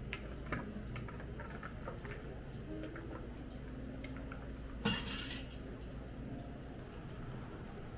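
Tableware clinking during a meal: scattered light taps of dishes and utensils, with one louder clink about five seconds in.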